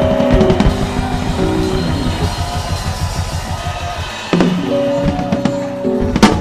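Music with a drum kit playing a steady rhythm under held chords. A sharp hit comes about four seconds in, where a new chord begins.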